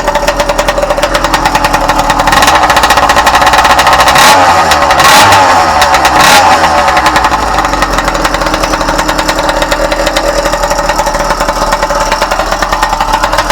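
Yamaha YD two-stroke twin motorcycle engine running, blipped up several times between about two and six seconds in, then settling back to a steady idle: the engine freshly tuned and idling smoothly.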